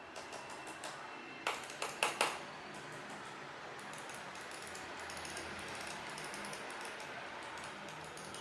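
Logitech M280 mouse buttons clicking: several faint clicks in the first second, then four sharper, louder clicks in quick succession about two seconds in, over steady background noise.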